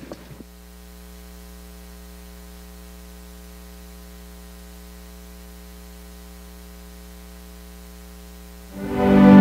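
A steady hum with many evenly spaced overtones, unchanging for several seconds. Near the end, instrumental music swells in and becomes much louder.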